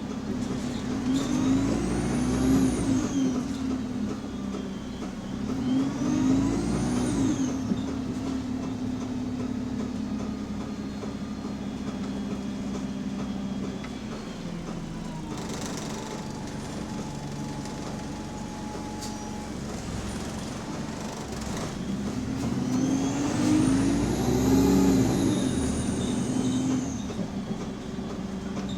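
Bus diesel engine heard from inside the passenger cabin: a steady hum with three stretches where the engine note rises and falls again as the bus accelerates and eases off. There is a brief hiss about halfway through.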